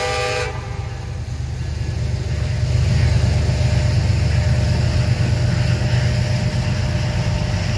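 A diesel locomotive's multi-chime air horn stops about half a second in. A diesel freight locomotive's heavy, low engine rumble then builds over the next couple of seconds and holds steady as the train passes.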